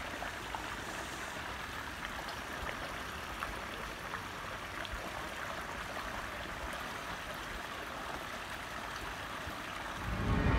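Steady rush of flowing water. A loud low rumble swells in near the end.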